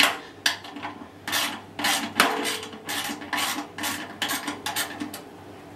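Quick, uneven rasping strokes of a hand tool working at the spider on a stainless-steel washing-machine drum, about three a second, stopping about five seconds in.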